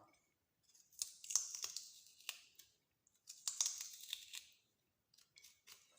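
A small raw white turnip having its core cut and scraped out to hollow it. There are two bouts of crisp scraping with small clicks, each about a second long, with a short pause between.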